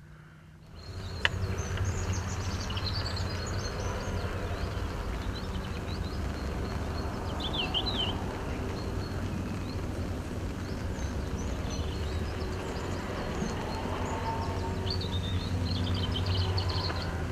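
Small birds chirping in short high calls over a steady low rumble, with a single sharp click about a second in.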